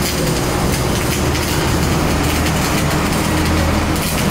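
Welding arc crackling and hissing steadily as a bead is laid on a steel plate, over a steady low hum.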